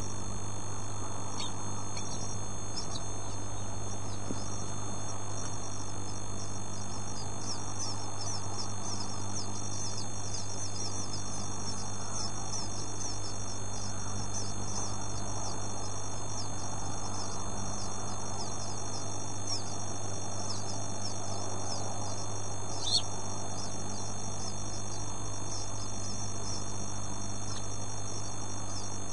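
Newly hatched bird chicks cheeping: many rapid, high-pitched, short falling peeps over a steady low electrical hum, with one louder peep about three-quarters of the way through.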